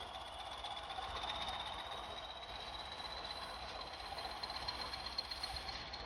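A pair of Class 20 diesel locomotives with English Electric 8SVT engines running under power. A high whistle rises slowly and steadily in pitch over the engine noise.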